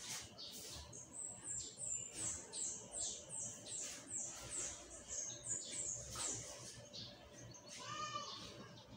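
A songbird singing a quick run of a dozen or so thin, very high notes, each slurring downward, about two or three a second for several seconds. Near the end comes a short, lower call with several tones.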